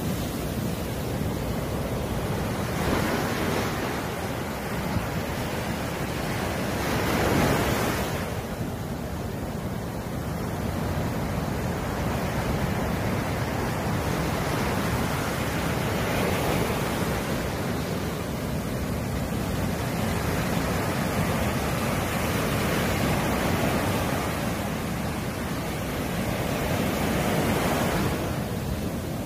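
Ocean surf breaking and washing up onto a sandy beach: a continuous rush of noise that swells louder every several seconds as each wave breaks.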